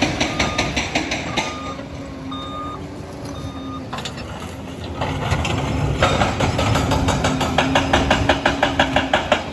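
Liebherr PR 746 crawler dozer at work: the diesel engine runs steadily while the reversing alarm beeps about once a second for the first few seconds. Rapid, even clattering of the steel tracks grows louder about halfway through.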